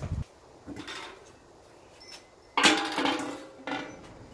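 Steel lid of a Pit Barrel Cooker being lifted off the barrel: a sudden metallic clank and scrape a little past halfway, then a shorter knock about a second later.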